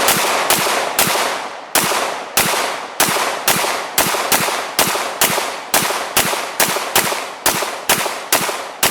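Pistol fired rapidly, about three shots a second at an uneven pace, each report trailing off just before the next.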